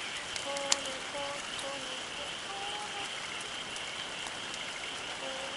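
Wood campfire crackling, with scattered small snaps and one sharp pop just under a second in.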